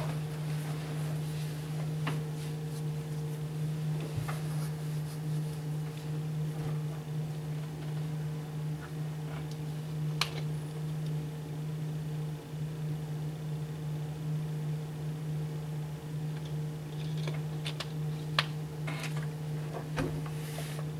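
A steady low hum from a running machine, with a few scattered sharp clicks.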